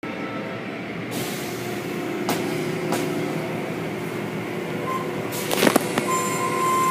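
Automatic tunnel car wash running: a steady machinery hum, joined about a second in by a hiss of spray. A few sharp knocks follow, with the loudest clatter a little past five seconds in.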